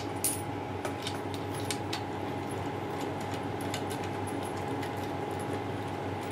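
Faint, irregular metallic clicks and clinks of bolts being undone and handled on the stator of an LG washing machine's direct-drive motor, over a steady background hum.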